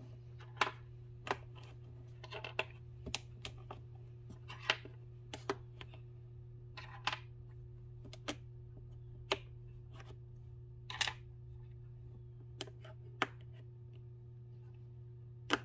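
Small depotted eyeshadow pans clicking and tapping as they are set one by one into an empty magnetic palette: irregular light clicks, one or two a second, over a steady low hum.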